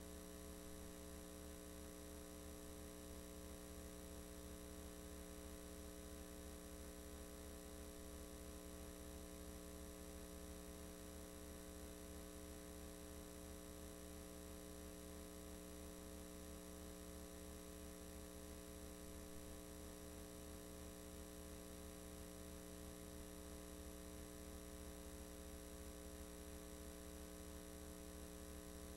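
Steady electrical mains hum with many overtones, faint and unchanging, with no other sound.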